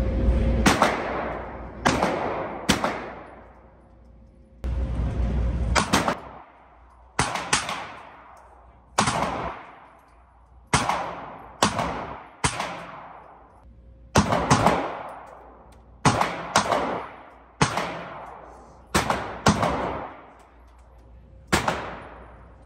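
Gunshots in an indoor shooting range: about eighteen single shots at uneven intervals, some in quick pairs, each followed by an echo that dies away over a second or so.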